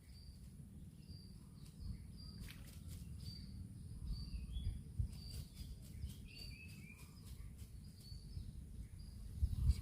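Outdoor ambience: a bird repeats a short high chirp about once or twice a second, with a few lower chirps midway, over a steady low rumble.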